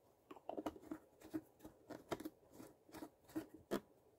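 Ink bottles being picked up, moved and set down on a work table: a faint, irregular string of light knocks and clicks, several a second.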